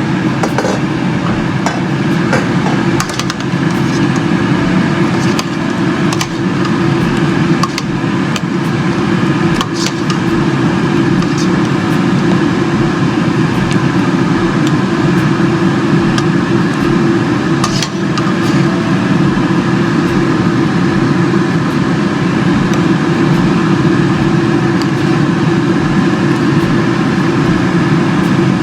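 A loud, steady mechanical hum, with a few faint light clicks here and there.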